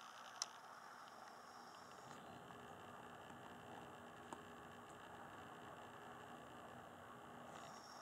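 Near silence: a faint steady hiss, with a sharp click about half a second in and a fainter click a little past four seconds.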